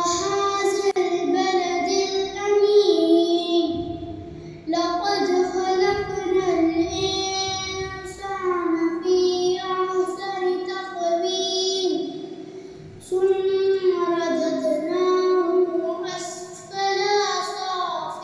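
A boy's voice chanting a Quranic recitation in Arabic, melodic and unaccompanied, in four long phrases with short breaks for breath between them.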